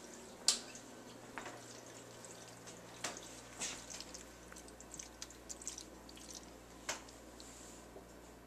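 Light clicks and scrapes of a utensil against a ceramic casserole dish as a pasta mixture is spread out in it, with a sharper tap about half a second in and others near three and seven seconds.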